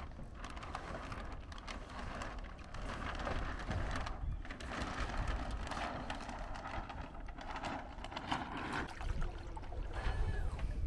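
Wind buffeting the microphone, a fluctuating low rumble under an uneven outdoor hiss.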